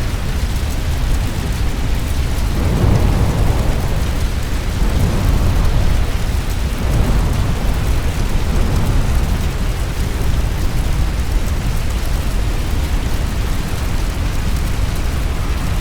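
Fire storm sound effect: a loud, steady, deep rumbling noise, swelling louder twice, about three and seven seconds in.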